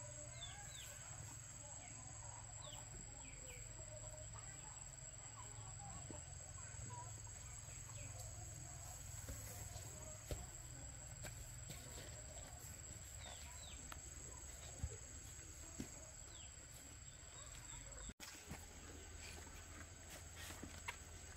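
Faint farmyard ambience: chickens clucking and small birds chirping, with a steady high insect-like whine and a few light knocks. The sound cuts out for an instant near the end.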